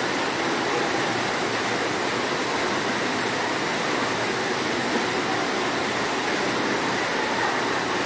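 Steady rush of running water from a water slide and pool.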